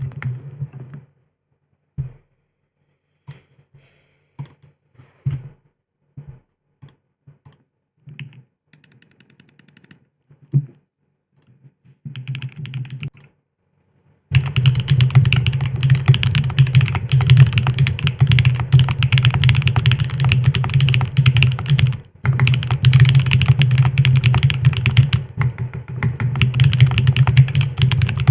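Aeris65 mechanical keyboard with SWK Mocha switches and WoB keycaps being typed on: scattered single keystrokes for about the first half, then fast, continuous typing from about halfway on, with a short break about three quarters of the way through.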